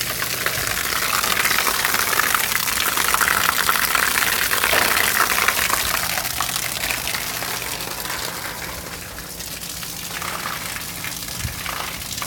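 Water from a garden hose running on the roof, pouring off the roof edge and splashing steadily, loudest in the first half and easing off after about six seconds.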